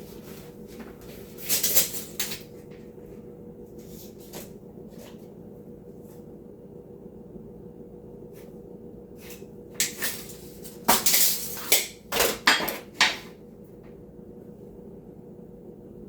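Scattered clicks, knocks and clattering of tools and loose screws being handled, busiest about two-thirds of the way through, over a faint steady hum.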